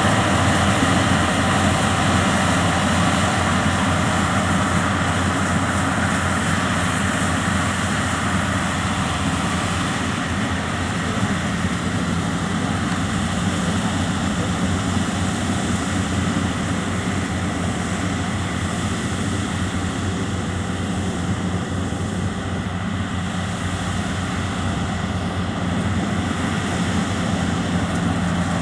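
Yanmar grain-tank combine harvester running steadily, its diesel engine and harvesting machinery giving a continuous drone; the higher hiss eases a little about ten seconds in.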